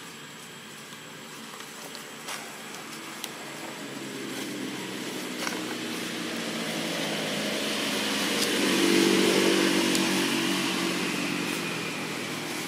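A motor vehicle's engine passing by: it grows steadily louder to a peak about nine seconds in, then fades, its whine falling in pitch near the end.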